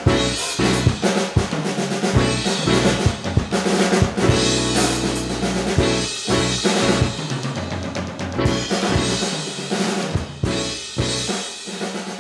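Mapex drum kit played with sticks: a dense run of snare, bass drum and tom hits, with crash cymbals struck along the way.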